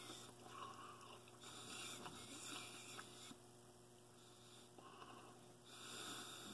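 Near silence: a few faint breaths through the nose, about every one to two seconds, over a low steady hum.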